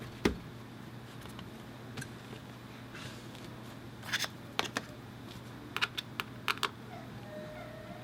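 A few sharp clicks and taps, one near the start and small clusters about four and six seconds in, over a low steady hum: small tools and laptop parts being handled on the workbench.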